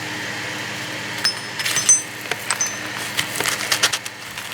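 Small metal parts clinking and clicking as they are handled, with a few short ringing pings and then a quick run of clicks, over a steady low hum.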